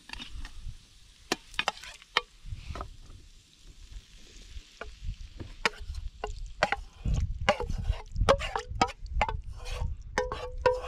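A utensil knocking, clinking and scraping in a Trangia frying pan as pasta is tipped in and stirred through the cooked pancetta. The knocks get busier about halfway through, some leaving the metal pan ringing briefly.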